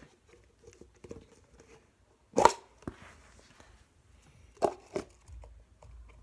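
Handling knocks and light rustling: one sharp knock about two and a half seconds in, a softer one just after, and two more knocks near the end.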